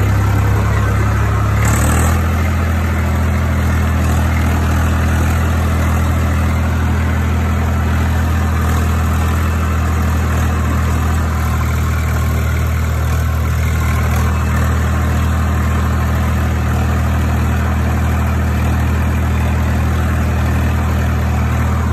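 Swaraj farm tractor's diesel engine running steadily under load while pulling a disc harrow through tilled soil. Its note steps slightly lower about two seconds in and then holds steady.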